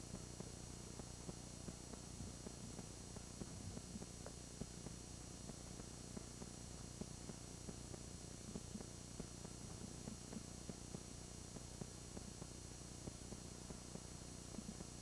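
Faint steady electrical hum and hiss of an old camcorder recording, with small irregular crackles throughout and no distinct sound event.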